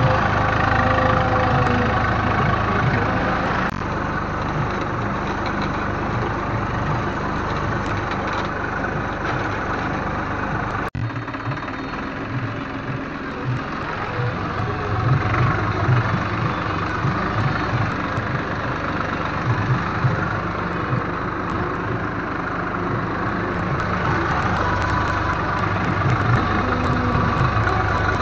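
Swaraj 855 tractor's three-cylinder diesel engine running steadily, heard close up from on the tractor as it works a ploughed field. The sound breaks off sharply about eleven seconds in and carries on with a slightly different tone.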